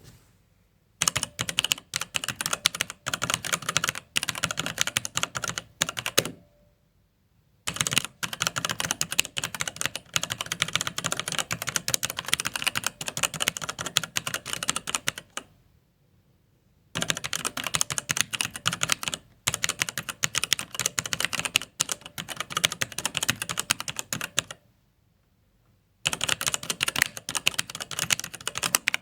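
Typing on a computer keyboard: rapid runs of key clicks in four long bursts, with pauses of a second or two between them.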